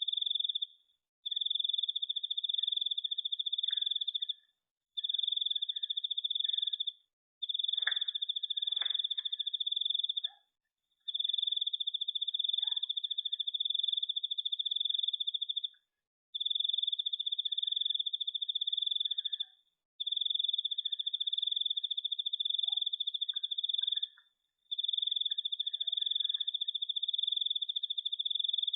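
A cricket trilling: one steady high-pitched trill in long runs of two to five seconds, broken by short pauses. Two faint ticks come about eight and nine seconds in.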